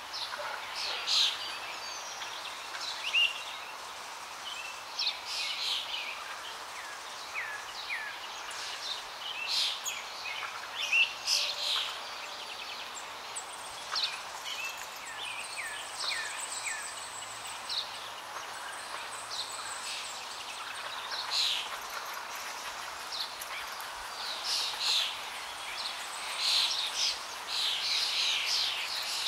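Birds chirping and calling: many short chirps and quick falling whistles over a steady hiss. The calls are busiest early on and again near the end.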